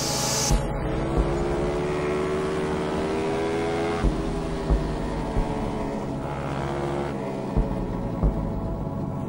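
Motorcycle engine heard from on board, rising in pitch as it accelerates. About four seconds in it drops as it shifts up, then climbs again. A few short low thumps come through.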